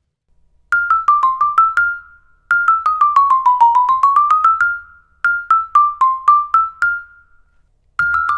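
Marimba One One Vibe vibraphone played with yarn mallets in three short staccato phrases of quickly damped notes, the middle one a run stepping down and back up. A faint low rumble sits under the notes: the frame noise being tested. Near the end a Malletech Omega Vibe starts a similar phrase.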